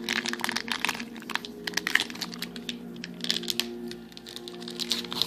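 Foil wrapper of a trading-card pack crinkling and tearing open, a rapid run of crackles, with the cards being handled.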